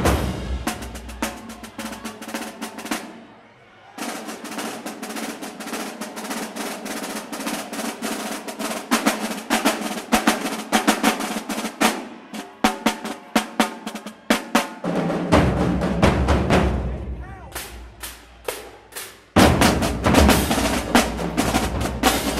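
Marching band drumline: snare drums play a fast cadence of rolls and rapid strokes after a brief pause, with no bass drums under them at first. Bass drums join about fifteen seconds in, and the full line, with bass drums and cymbals, comes back in hard near the end.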